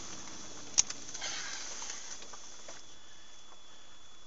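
Dashcam's in-cabin recording of a moving vehicle: steady road and cabin noise, with one sharp click a little under a second in and a faint, thin, steady high tone.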